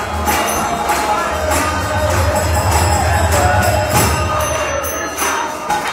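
Temple kirtan: a group of voices singing a devotional chant over jangling hand cymbals (kartals) struck about twice a second, with a steady low drone underneath.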